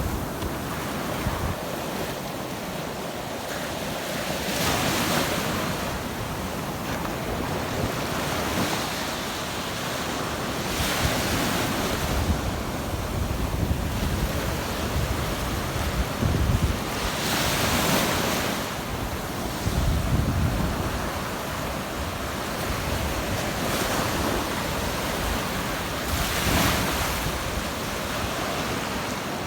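Surf breaking on a beach, each wave a rush that swells and fades every several seconds. Wind buffets the microphone with low rumbling gusts in the middle stretch.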